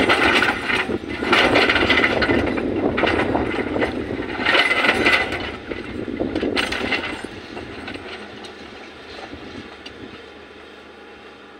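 Volvo tracked excavator working: engine running with surges of rattling, scraping noise, loudest in the first half, then dying down over the last few seconds.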